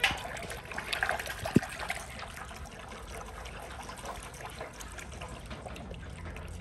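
Water splashing and trickling in a metal basin as a hand stirs it, busiest in the first couple of seconds, with one sharp knock about a second and a half in.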